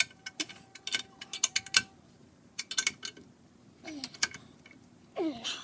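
Socket ratchet clicking in quick runs while a brake bolt is pulled tight, with a short squeaky tone under the first clicks. Short creaks fall in pitch near the end as the bolt is pulled hard.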